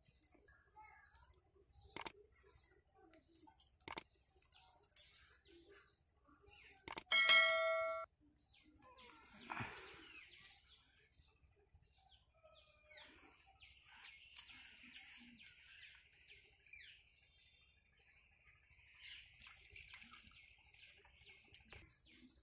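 A steel dish rings once with a metallic clang about seven seconds in, the loudest sound here. Around it come scattered small clicks and taps of work at a stone grinding slab, and birds chirp through the second half.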